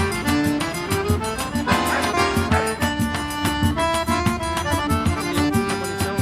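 Accordion-led festa junina dance music over a steady, quick percussion beat.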